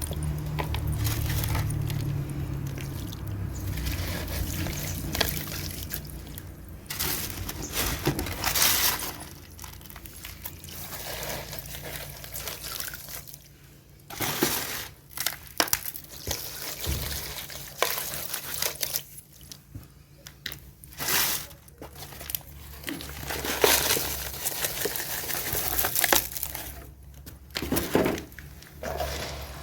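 Dry cement crumbled and poured into water, with irregular bursts of crumbling, splashing and pouring.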